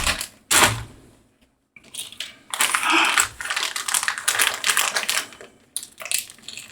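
Packaging being handled and unwrapped: a sharp rustle about half a second in, a short pause, then a run of irregular crinkles and clicks.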